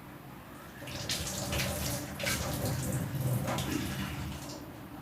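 Water running from a tap and splashing unevenly into a sink, starting about a second in and stopping shortly before the end.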